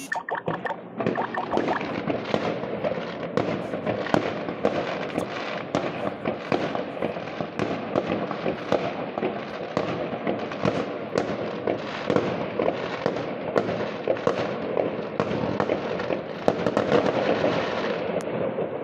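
Many fireworks and firecrackers going off at once: a dense, continuous crackle of bangs with no let-up.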